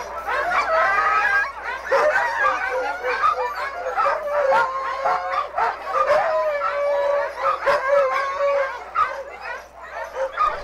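A team of harnessed sled dogs barking, howling and yipping all at once, with a long, held howl in the middle. This is the excited din of a hitched team eager to run.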